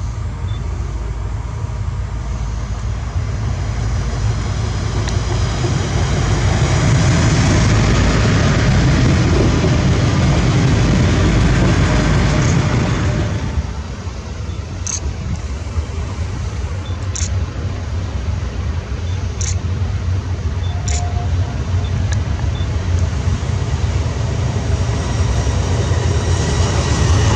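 A Trenitalia Minuetto regional train running by, its rumble growing louder through the first half. After a sudden drop, a GTS Rail E.494 electric locomotive hauling a container freight train approaches with sharp clicks every two seconds or so, growing louder as it comes close near the end.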